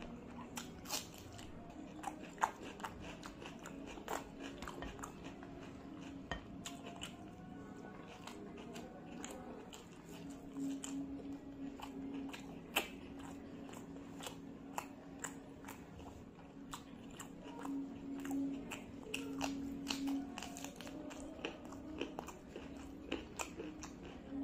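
A person chewing and crunching food close to the microphone, with many sharp, irregular crunches as from biting a raw onion slice, over steady quiet background music.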